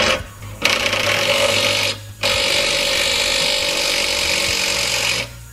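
Cordless impact wrench hammering a nut down onto the rear shock absorber's lower mounting bolt. A short blip, then two runs: one of about a second, and after a brief pause one of about three seconds, which stops abruptly.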